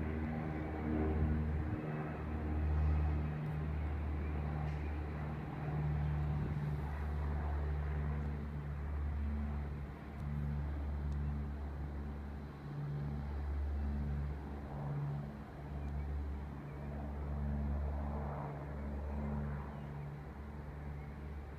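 Aircraft flying overhead: a steady low drone that swells and fades.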